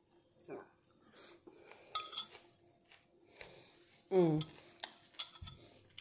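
Eating utensil clinking and knocking against a ceramic soup bowl, with a few ringing clinks about two seconds in. About four seconds in comes the loudest sound, short and falling quickly in pitch.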